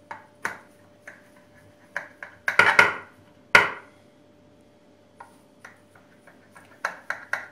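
A knife slicing through a baked sponge cake in a glass baking dish, the blade scraping and knocking against the glass bottom in irregular strokes. The loudest is a sharp knock about three and a half seconds in.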